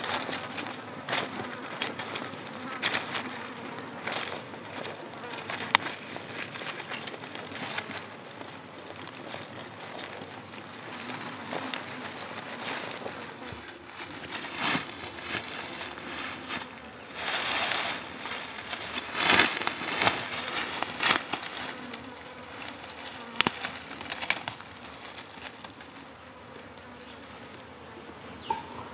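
Insects buzzing in the forest, with scattered rustles and knocks of handling throughout, loudest about two-thirds of the way through.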